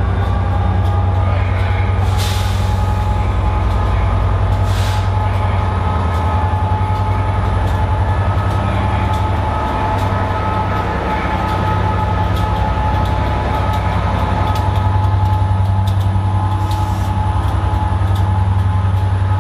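Class 67 diesel locomotive's two-stroke V12 engine working steadily as the train pulls out, a deep drone with a steady whine over it. Three short hisses cut in: about two seconds in, about five seconds in, and near the end.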